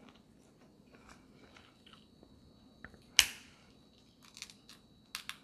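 Snow crab leg shell being cracked open: one sharp, loud crack about three seconds in, with smaller clicks and crackles of shell before and after it.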